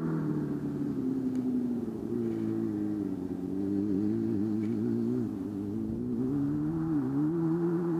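Mini sand rail's small engine running under way, its pitch wavering up and down with the throttle and dipping briefly a couple of times.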